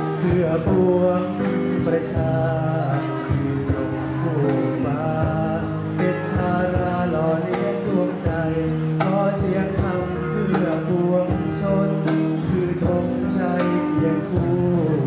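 Thai devotional song with acoustic guitar and a steady percussion beat, and a man singing into a microphone.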